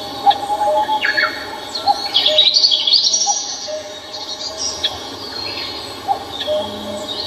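Several birds singing and chirping together: quick high chirps and trills, busiest a couple of seconds in, over short lower notes repeated about once a second.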